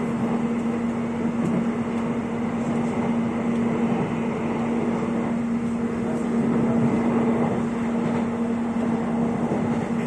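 Jakarta airport rail link electric train running, heard from inside the carriage: steady running noise with a constant low hum.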